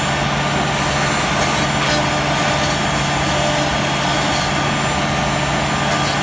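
CNC router running, its spindle cutting louver grooves into a cabinet door: a steady, even machine sound with constant tones over a hiss of cutting.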